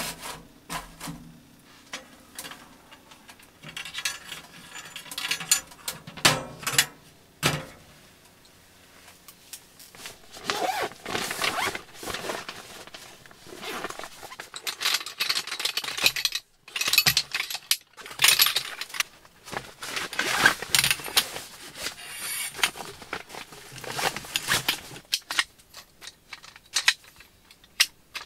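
Camping gear being handled: rustling of a bag and fabric, with scattered sharp clicks, knocks and clinks of metal tent poles being fitted together.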